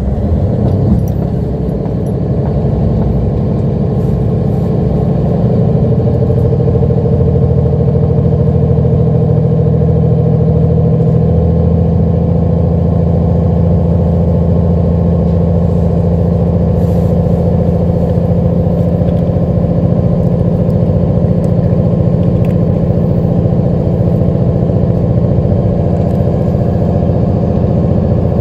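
Diesel railcar engine of a JR Hokkaido limited express, heard from inside the passenger car, running hard under power as the train gets under way. Its steady hum climbs a little in pitch and loudness over the first few seconds, then holds even.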